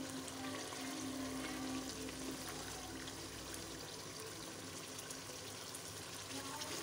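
Chicken karahi gravy sizzling and bubbling in a karahi during the bhunai stir-frying, with a spoon stirring through it and small crackles throughout. A steady low hum sits underneath for the first few seconds.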